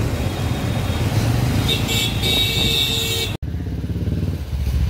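Motorcycle engines running in street traffic, with a high steady tone joining in about two seconds in. After a break about three and a half seconds in, a cruiser motorcycle's engine runs with a low, even beat.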